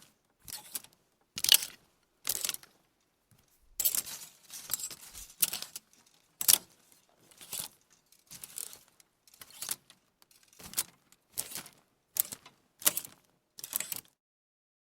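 Clothes hangers being moved, clattering and rattling against each other in short bursts about once a second, with a busier stretch of rattling in the middle; the clatter stops about a second before the end.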